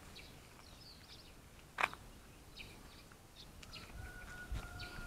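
Small birds chirping faintly and sporadically, with one sharp click about two seconds in and a steady high tone starting near the end.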